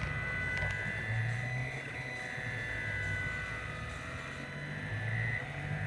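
3D printer's stepper motors running through a print: a whine that shifts pitch with each move of the print head, over a low hum.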